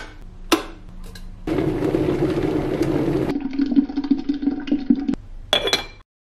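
A click as a stainless electric kettle's lid is pressed open, then a rush of water and a steady stream pouring into a ceramic teapot, ending with a short ringing clink of the teapot's lid just before the sound cuts off.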